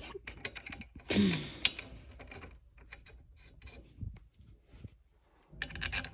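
Scattered light clicks and knocks of hand tools and BMX parts being handled during assembly, with a louder scrape about a second in and another burst of noise near the end.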